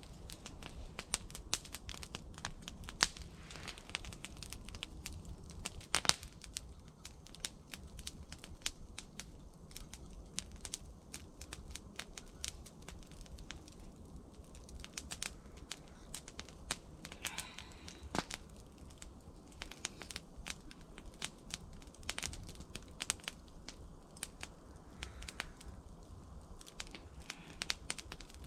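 Wood fire crackling, with many small irregular pops and snaps.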